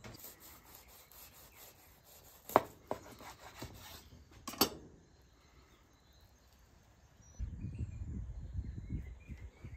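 A kitchen knife sawing back and forth through a crisp, cheese-crusted tortilla on a wooden cutting board, in quick rasping strokes. Two sharp knocks come about two and a half and four and a half seconds in. The cutting stops just before five seconds in, and a low rumble comes in near the end.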